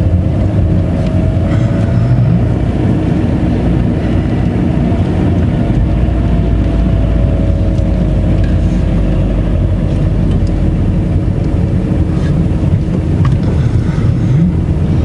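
Engine and road noise heard inside the cabin of a moving manual-gearbox car: a steady low rumble with a faint engine whine that drifts slightly up and down.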